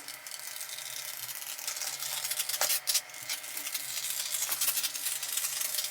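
Expanding foam hissing and crackling as it is dispensed from a foam gun into a seal along the bottom of a garage door, with a few sharp clicks near the middle.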